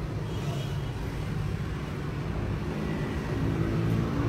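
A low, steady engine rumble like passing motor traffic, growing louder near the end.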